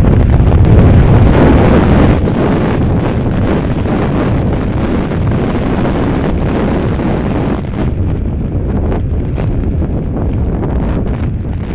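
Wind buffeting a helmet-mounted camera microphone on a moving motorcycle, a loud steady rushing with road noise underneath, easing slightly about two seconds in.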